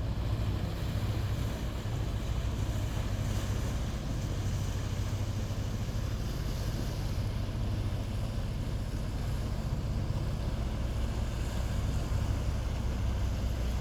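Fishing boat engine running steadily with a low hum, over an even hiss of wind and water.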